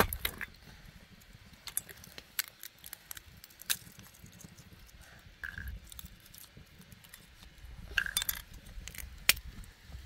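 Walnut shells cracking and snapping as they are broken open and picked apart by hand, with shell pieces clicking into a metal bowl: a string of sharp, separate cracks.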